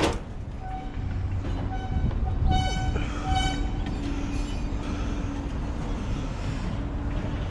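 A horn sounding several short blasts over a low, steady rumble of heavy machinery.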